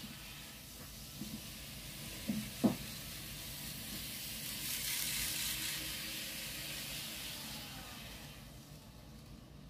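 Kato N-scale model train running on the track out of sight: a faint hiss of wheels on rail that swells midway and fades near the end, with a few light clicks in the first three seconds.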